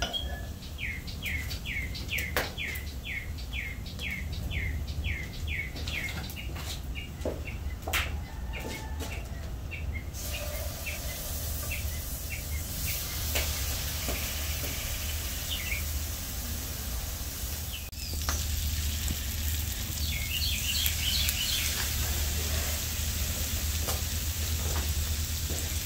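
Raw chicken pieces sizzling as they are laid into hot butter in a cast-iron spider skillet over hearth coals, a steady frying hiss that sets in about ten seconds in and grows stronger near the end, with a few knocks of the pieces and utensils against the pan. Early on a songbird outside repeats a quick descending chirp, two or three a second.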